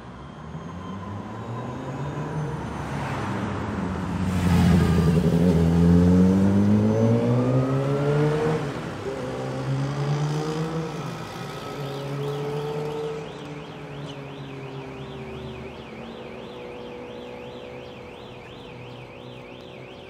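City street traffic: cars pass close by and pull away, their engines rising in pitch, loudest a few seconds in. From about halfway through, a high electronic alarm tone warbles quickly up and down, a few times a second.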